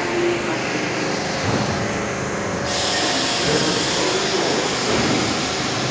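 New York City subway train running along the platform in an underground station: a steady rumble and rattle of the cars on the rails. About three seconds in, a hiss rises sharply and keeps on.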